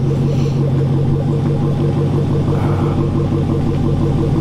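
Supercharged 6.2-litre Hemi V8 of a 2020 Dodge Challenger SRT Hellcat Redeye idling steadily on its factory exhaust.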